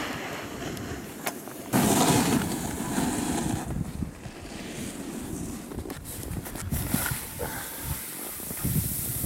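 A snowboard sliding and carving over packed, groomed snow, its edges scraping, with wind rushing over the microphone. The noise swells and fades with the turns, with a louder surge about two seconds in.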